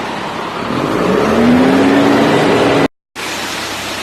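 Concrete mixer truck's engine revving, its pitch rising for about two seconds over a steady running noise. The sound cuts out for a split second near three seconds in, then the steady running noise carries on.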